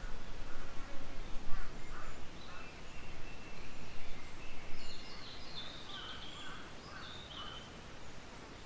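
Japanese bush warbler singing: a long held whistle, then a run of quick stepping notes, with small chirps from other birds lower down. A steady low rumble of outdoor background noise runs underneath.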